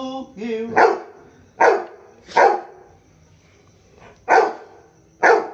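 Labrador retriever barking, five short loud barks, about a second apart with a pause of nearly two seconds before the last two.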